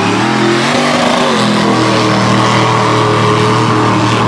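Off-road vehicle engine revving hard. Its pitch shifts up and down over the first second and a half, then it is held steady at high revs.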